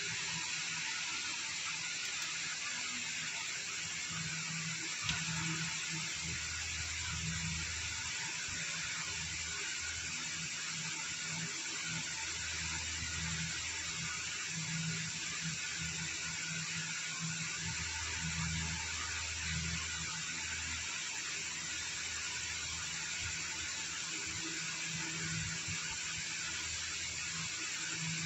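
Steady hiss with a low hum that swells and fades several times.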